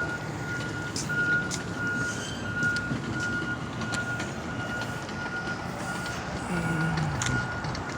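Reversing alarm of a construction vehicle beeping at one steady high pitch, over a steady outdoor rumble of traffic and machinery.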